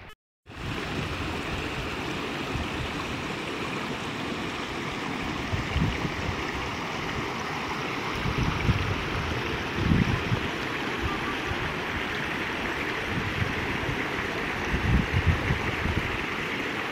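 Small stream running steadily, a continuous rush of flowing water, with a few low bumps here and there.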